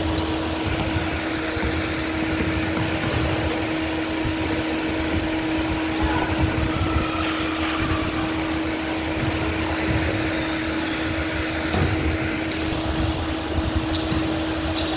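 Large standing electric fan running close to the microphone: a steady motor hum, with its airflow buffeting the mic as an uneven low rumble. Faint knocks and sneaker squeaks from a basketball game come through underneath.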